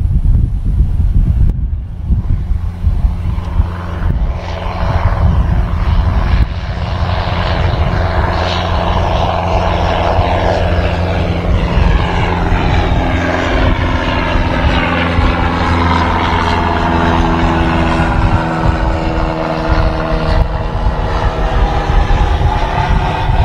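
Boeing 757 freighter's twin turbofan engines at climb power as the jet climbs away: a loud, steady rumble with whining tones that sweep slowly downward.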